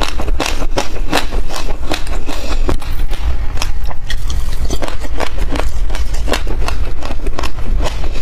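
Close-miked crunching and chewing of mouthfuls of sesame seeds, a rapid crackle of small sharp clicks, mixed with a metal spoon scraping through the seeds in a glass dish. A steady low hum runs underneath.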